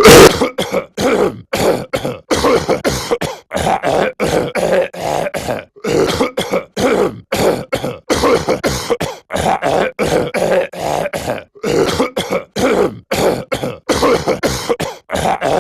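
A cartoon character's voice clearing its throat and coughing over and over in short, rapid bursts, about two or three a second.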